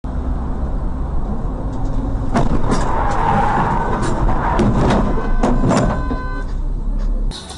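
Car crash: a vehicle's steady low road rumble, then a run of sharp bangs and knocks about two to six seconds in, with a rushing, scraping hiss among the first of them.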